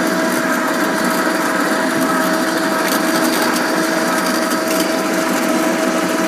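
Electric-converted Craftsman lawn tractor driving in second gear with the mower blades off: the Motenergy ME1004 electric motor and drivetrain running steadily, a steady whine over rough mechanical noise.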